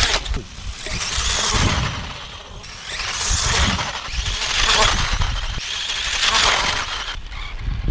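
Radio-controlled car being driven, with about four swells of hissing tyre-and-drive noise that rise and fall as it passes.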